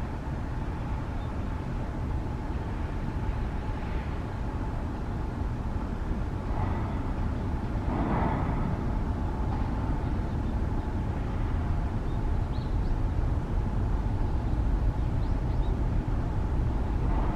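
Jet airliner engines: a steady rumble with a constant whine, growing gradually louder as the aircraft approaches.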